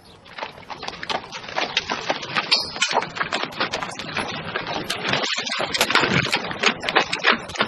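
Busy market-street ambience fading in: a dense, irregular clatter of knocks and taps, with clip-clop among them.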